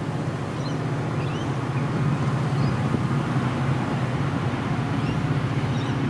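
Steady low drone of a motor vehicle engine running, with a few faint, short, high bird chirps over it.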